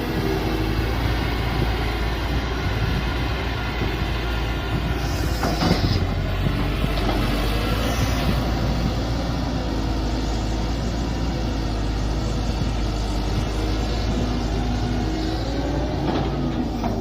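Mini excavator's small diesel engine running steadily under load, with tones that shift as the hydraulics work. There is a single clunk about six seconds in.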